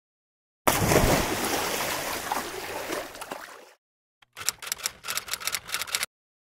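A sudden loud rushing noise that fades over about three seconds and cuts off, then after a short gap a quick run of sharp clicks lasting almost two seconds.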